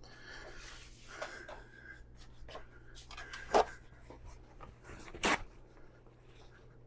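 Small handling noises on a workbench: scratchy scraping with scattered clicks and taps, two sharper clicks about three and a half and five seconds in, over a steady low mains hum.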